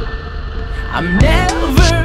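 Background music: a steady low drone, then a beat and a wavering melody line come in about a second in.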